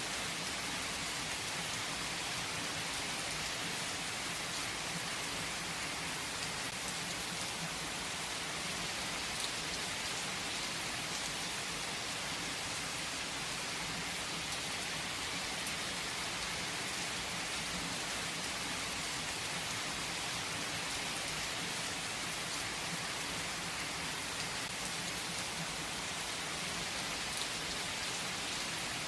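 Heavy rain falling on a tree's leaves: a steady, even hiss with a few sharper drop ticks.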